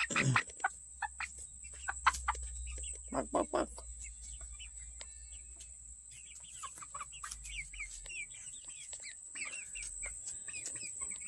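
Young Red Star chickens clucking close by, short low notes in the first half, then from about six seconds in a run of quick high chirps.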